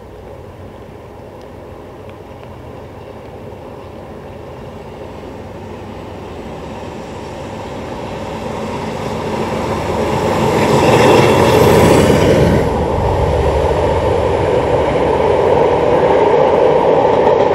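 Class 47 diesel-electric locomotive with its Sulzer twelve-cylinder engine approaching and passing, hauling passenger coaches. The engine grows steadily louder, is loudest as the locomotive goes by about eleven seconds in, then the coaches' wheels rumble past on the rails.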